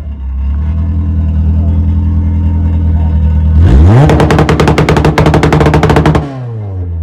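Car engine idling, then revved hard about three and a half seconds in, held high for about two seconds with a rapid pulsing note, and let fall back toward idle near the end.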